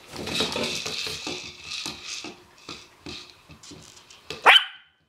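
Havanese puppies scuffling in play, a rough run of scratching and clicking. Near the end comes one short high yelp.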